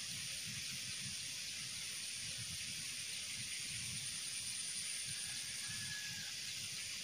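Small ditch water trickling as a steady hiss, with a thin high steady whine over it and a faint low rumble.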